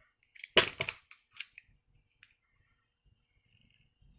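Kangaro all-in-one stapler being handled: one sharp clack about half a second in, followed by a few lighter clicks.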